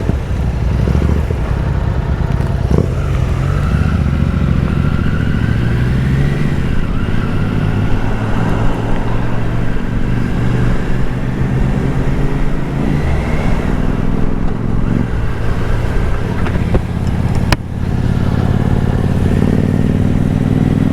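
Motorcycle riding away: its engine runs steadily and climbs slowly in pitch as it picks up speed. A sharp click and a brief drop in level come about three quarters of the way through.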